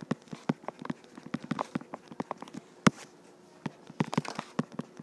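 A stylus tip tapping and ticking on a tablet's glass screen during handwriting: quick, irregular clicks, several a second, with one sharper click about three seconds in.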